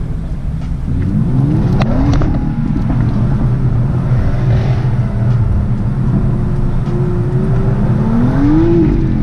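Car engine accelerating, heard from inside the cabin: the engine note climbs about a second in, holds steady for a while, and climbs again to a peak near the end before dropping back.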